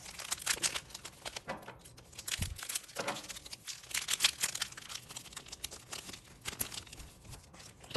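Foil wrappers of Pokémon 151 booster packs crinkling irregularly as they are handled and torn open.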